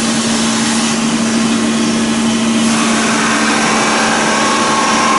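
A steady machine drone: a constant low hum over an even hiss, with a faint higher whine joining about three seconds in.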